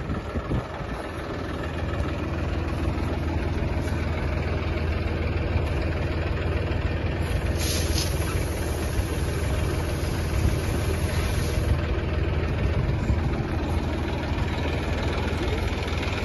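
Massey Ferguson 245 tractor's diesel engine running steadily with a low, even hum. About eight seconds in comes a brief hiss of wheat grain pouring into the seed drill's hopper.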